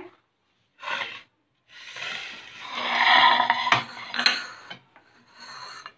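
Ceramic plates and bowls being handled and shifted on a kitchen counter. A short rustle comes about a second in, then a longer scraping rub with a single clink near four seconds.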